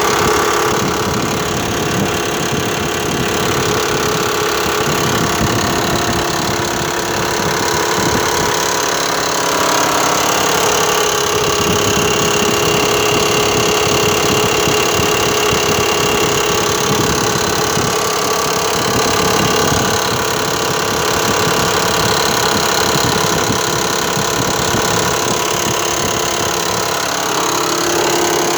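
Mitsubishi Pajero IV's 3.0 V6 petrol engine idling with a rapid knock from inside the engine. The engine note shifts a couple of times, once about a third of the way in and again near the end.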